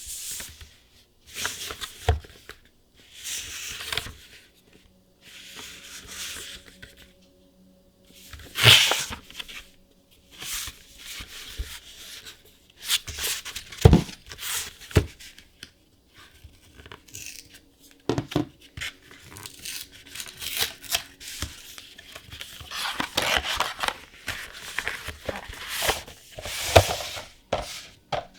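Packaging of a trading card gift box being torn open by hand. Irregular bursts of tearing and crinkling come with short pauses, and a few sharp knocks sound as the box is handled.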